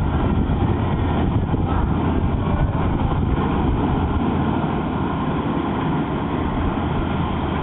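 Thames Clipper river-bus catamaran's engines running with a steady low rumble as the boat pulls away.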